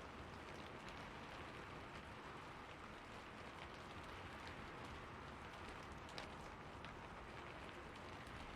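Steady rain falling on a rooftop: an even hiss with scattered individual drop ticks, and one sharper drip about six seconds in.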